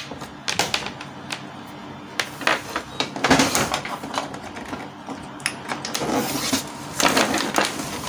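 Irregular clicks, knocks and short rattles from handling a Canon G1010 inkjet printer as its power cable is plugged into the back, louder bursts about three seconds in and again near the end.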